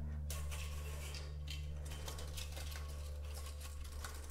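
A steady low hum under faint light clicks and rustles as the blind's pull cord is drawn through and its plastic base rail is handled.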